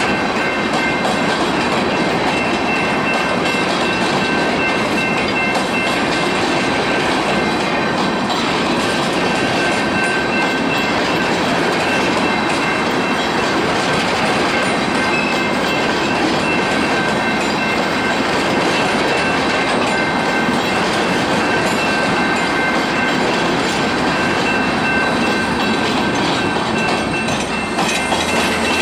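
Freight train of steel aggregate hopper cars rolling past, a steady, loud rolling noise of steel wheels on rail, with a faint steady high-pitched ring running over it.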